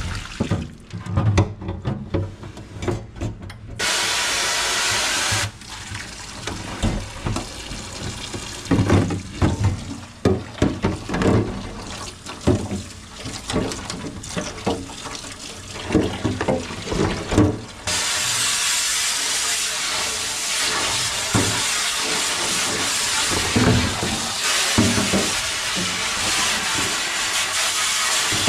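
A kitchen tap running into a sink. It runs briefly about four seconds in, then runs steadily from about eighteen seconds in, with knocks and clatter of items being handled in between and over it.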